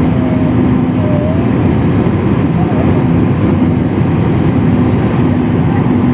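Airliner cabin noise: a loud, steady rumble of jet engines and rushing air with a faint steady hum, heard from inside the passenger cabin.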